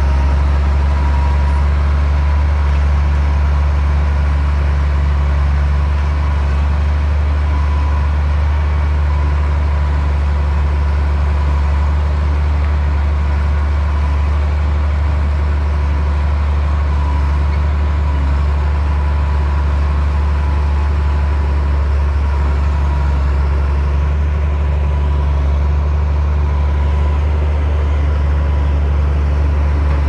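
Komatsu D60P bulldozer's diesel engine running with a steady, unchanging low drone, a faint thin high whine riding above it.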